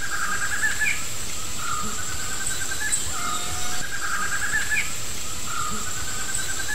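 Forest ambience: a steady high insect whine under recurring bursts of bird chirping.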